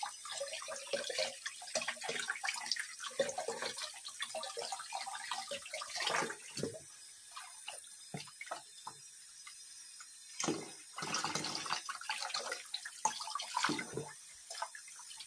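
Water splashing and sloshing in irregular bursts as hands clean fresh anchovies in water, quieter for a few seconds midway.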